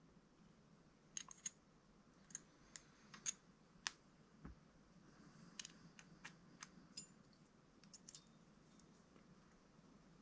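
Faint, scattered clicks and light taps of small metal parts being handled: the bearing and shims of an RC car's central differential being fitted.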